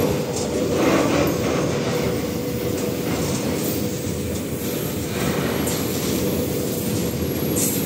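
Freight train's open gondola wagons rolling past at speed: a steady rumble and clatter of steel wheels on the rails, with a steady ringing tone running underneath and brief high hissing patches about a second in and again past five seconds.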